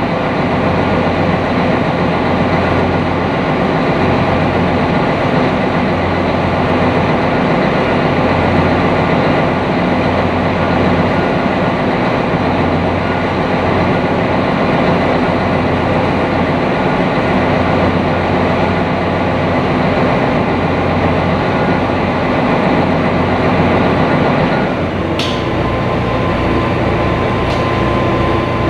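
Engine of a lake sightseeing boat running steadily under way, heard on board. About 25 seconds in there is a sharp click, after which the engine's low hum changes.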